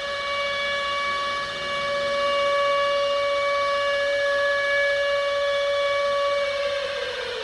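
Civil defence air-raid siren sounding a steady wail, its pitch beginning to fall as it winds down near the end.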